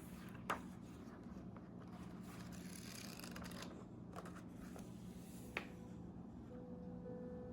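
Faint handling noise on a camcorder: soft rustling and scraping over a steady low hum, with two sharp clicks, one about half a second in and one about five and a half seconds in.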